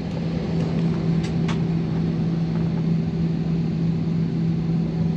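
A vehicle running at a steady speed: a constant low engine hum over continuous rushing noise.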